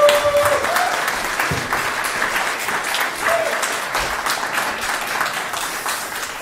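Audience applause: a room full of people clapping, easing off slightly toward the end.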